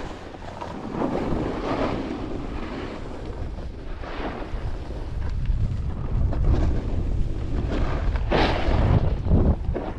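Wind buffeting the microphone and a snowboard's edge scraping and hissing over packed snow during a descent. The rush swells with each turn, with a sharp swoosh of a harder edge turn about eight seconds in.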